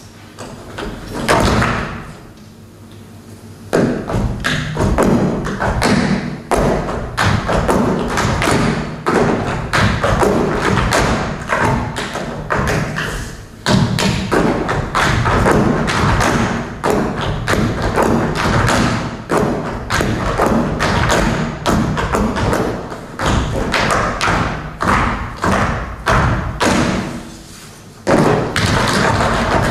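A group of dancers in hard-soled dance shoes stamping and tapping out rhythms on a stage floor, dense runs of sharp foot strikes. The strikes pause briefly about two seconds in and again shortly before the end.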